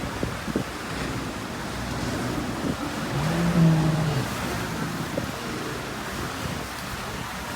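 Steady wind and water rush with engine noise aboard a large cruise boat getting underway on its diesel engines. About halfway through, a single low tone sounds for about a second and is the loudest thing heard.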